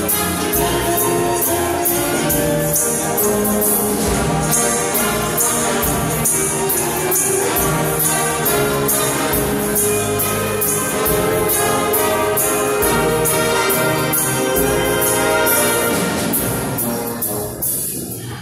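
Brass band playing a swing-rhythm number, horns over steady cymbal strokes; the music drops away near the end.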